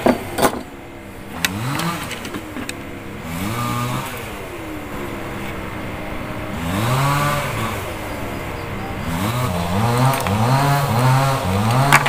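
A small engine revving up and down over and over, the revs coming quicker near the end, with a few sharp clicks.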